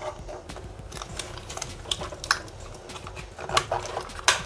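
Small plastic clicks and rattles of an RC truck's battery connector being unplugged and the battery being worked out of the plastic chassis by hand, with a few sharper clicks, the sharpest near the end.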